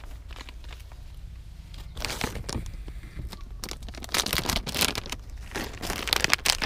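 Clear plastic bag crinkling as it is handled, in dense irregular crackles that start about two seconds in.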